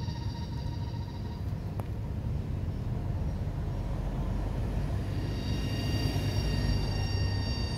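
Outdoor ambience: a steady low rumble under a high, steady droning whine. The whine fades out about a second and a half in and comes back about five seconds in.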